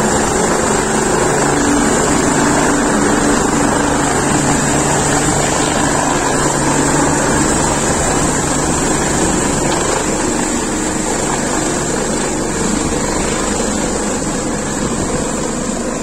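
Helicopter running at take-off power as it lifts off and climbs away: the turbine engines give a steady high whine over the churning rotor noise and low tones. The sound eases off slightly over the last few seconds as it gains height.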